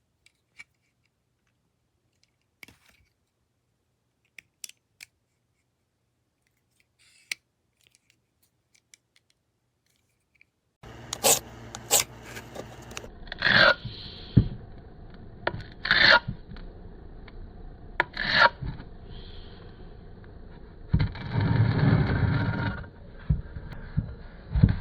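A few faint clicks, then from about ten seconds in, repeated scraping and rubbing on a hard surface with sharp clicks, ending in a longer rasping scrape.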